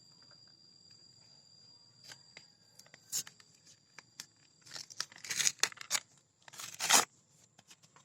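Packaging torn open by hand, with a few short rips and some crinkling from about three seconds in; the loudest rip comes near the end.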